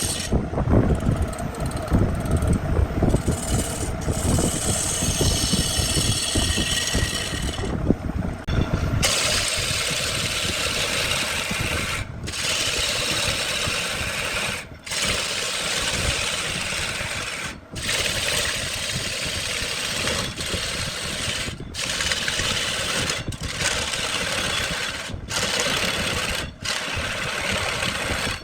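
Woodworking power tools running: a heavy low rumble for about nine seconds, then a steady high hiss of tool cutting or sanding wood, broken by several sudden brief dropouts.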